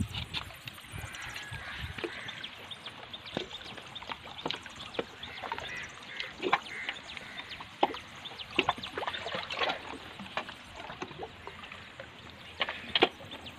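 Small waves lapping at a rocky lakeshore, with irregular sharp clicks and taps scattered over it, the loudest about a second before the end.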